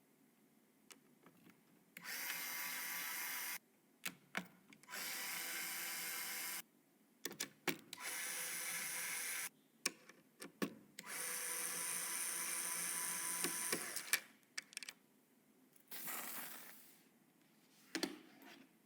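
Small electric screwdriver driving screws in four steady runs of about two seconds each, with small clicks and knocks of parts being handled between them. A shorter, fading run comes near the end.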